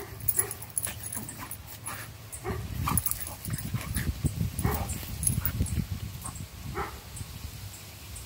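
Two dogs at play, giving about half a dozen short yips and whines. A low rumbling noise runs through the middle of the stretch.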